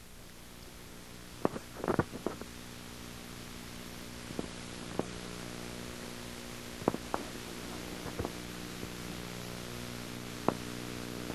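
Steady electrical hum with hiss, broken by a dozen or so scattered short clicks.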